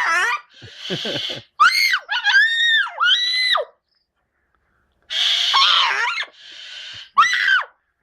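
Screaming contest between a parrot and a boy: a run of short, high-pitched rising-and-falling screams, with harsh, hissing screeches between them and a pause of about a second and a half in the middle.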